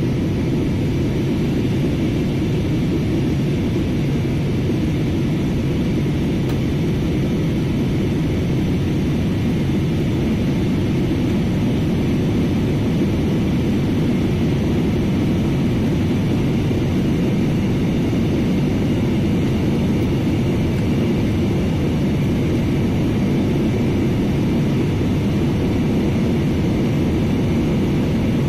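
Cabin noise of a jet airliner in its climb, heard from a window seat: the engines and rushing air make a loud, even low rumble with a faint steady high whine over it.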